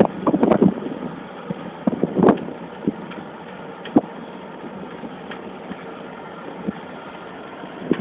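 Fortschritt E514 combine harvester's diesel engine running as the machine travels on the road, with irregular rattling and clattering knocks. It is loudest in the first second and again about two seconds in, then settles to a steadier running noise with occasional single knocks.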